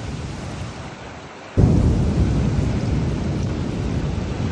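Rain falling steadily, then about one and a half seconds in a loud, low rumble of thunder starts suddenly and keeps rolling.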